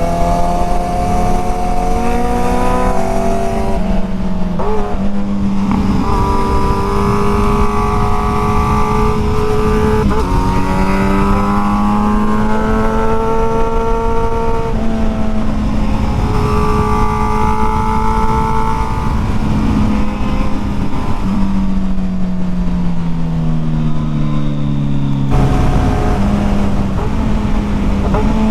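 Sport motorcycle engine pulling hard through the gears: its pitch climbs and drops sharply at each upshift several times, then falls away as the bike slows, over a steady rush of wind and road noise.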